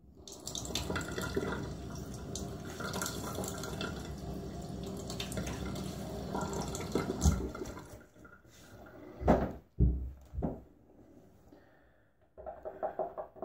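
Water from a running bathroom tap splashed onto the face by hand at the sink, a steady splashing for about seven seconds. Then come a few louder, short knocks.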